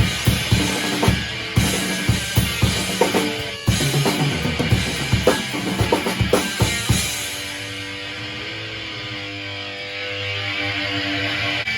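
Loud live rock band playing, with hard-hit drum kit fills over held guitar chords. About seven seconds in the drums stop and a final chord rings on, closing the song.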